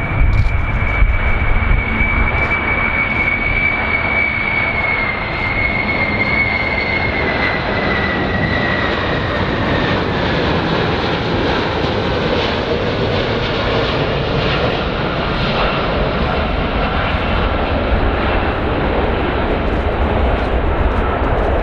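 Airplane engines running, a loud steady rumble with a high whine that slowly falls in pitch over the first ten seconds or so.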